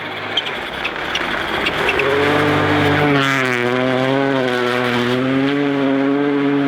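Rally car engine at high revs, growing louder over the first two seconds with a few sharp cracks. The engine note then holds loud, its pitch wavering up and down as the throttle is worked.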